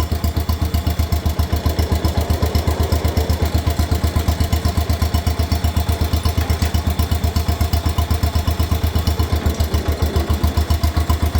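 Farmhandy three-wheeler's small engine running steadily in low gear, an even pulse of about eight beats a second through its muffler.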